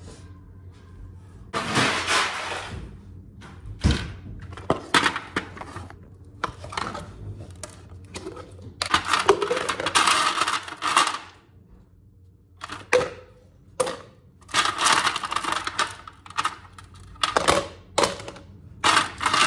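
Ice cubes clattering as they are scooped by hand from a plastic box and dropped into a plastic cold cup. There are three bursts of clatter, the longest about two seconds long, with single knocks between them.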